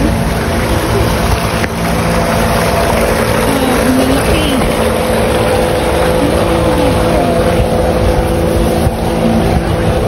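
A small motorized boat on a pond, its motor humming steadily at one constant pitch under a loud, even rush of noise.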